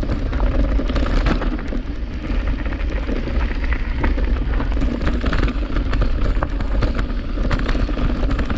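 Enduro mountain bike descending a rough, rocky dirt trail at speed: tyres rolling over dirt and stones, the bike rattling with frequent sharp clicks and knocks. Wind buffets the bike-mounted camera's microphone.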